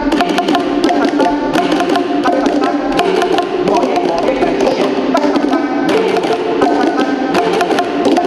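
Several tuned plastic percussion tubes (Boomwhackers) struck rapidly by a group, a dense, fast clatter of hollow pitched hits. The different tube pitches overlap into a chord-like ring.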